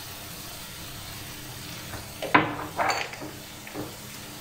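Onion and tomato-paste filling sizzling softly in an aluminium pot. About two seconds in comes a sharp knock, the loudest sound, followed by a short clatter of kitchenware.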